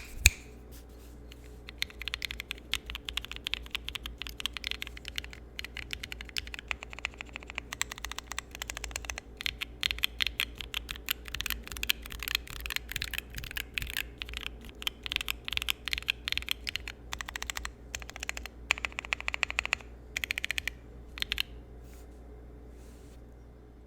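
Typing sound test on a Keychron Q0 mechanical numpad with Holy Panda X tactile and Red Jacket linear switches, dampened with thick neoprene foam and Band-Aid under the stabilizers. The keys are pressed rapidly in uneven bursts, with one sharp loud click right at the start. The keystrokes stop a few seconds before the end over a faint steady hum.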